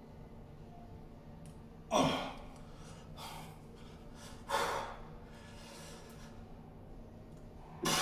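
A man breathing out hard three times, each a short, sharp exhale about two and a half seconds apart, as he strains to tense his muscles into poses.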